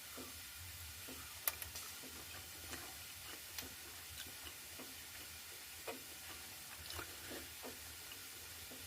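Soft, irregular clicks and taps of kitchen handling, with a sharper click about a second and a half in, over a faint steady hiss of a pan sizzling.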